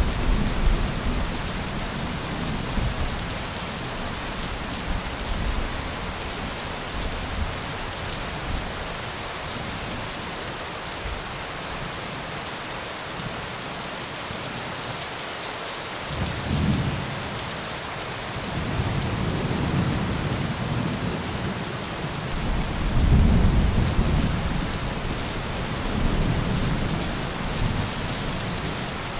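Thunderstorm: steady rain hissing throughout, with low thunder rumbling near the start, a lull in the middle, then several rumbles in the second half, the loudest late on.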